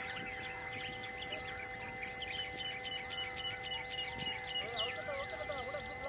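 Forest birds chirping and whistling over a steady background drone, with a quick run of repeated high notes about halfway through and lower warbling calls near the end.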